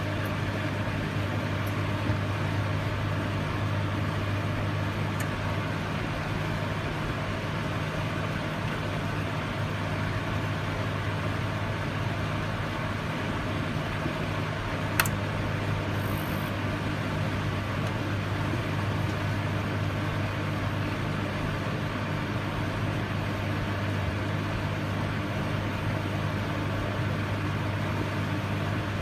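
Microwave oven running: a steady low hum with a constant noise of the fan and turntable over it. A single sharp click about halfway through, while the hum carries on.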